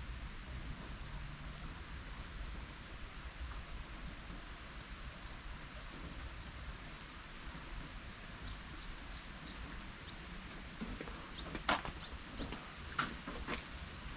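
Outdoor ambience: a steady, high-pitched chirring that faintly pulses, with a few sharp taps near the end.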